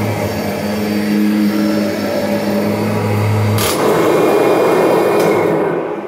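1991 Kirby Generation 3 upright vacuum cleaner running on carpet with a steady low hum. A sharp click comes about three and a half seconds in, the hum drops out and a rougher rushing sound carries on, beginning to die away at the very end.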